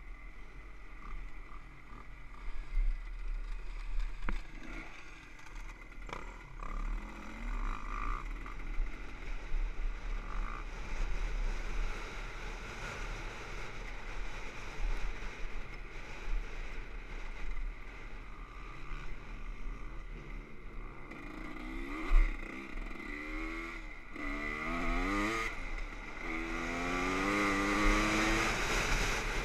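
Dirt bike engine running under a riding load, with wind buffeting the helmet-mounted microphone. In the last few seconds the engine pitch rises and falls several times as it accelerates and shifts.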